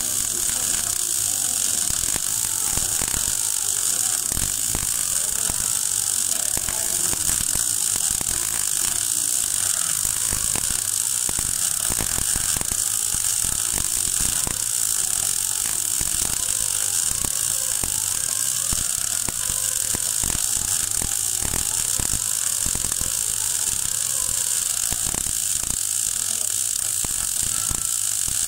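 MAG (gas metal arc) welding arc crackling and hissing steadily at 16.5 volts and 3.2 m/min wire feed, laying a vertical-up fill pass on a 12 mm steel plate butt joint.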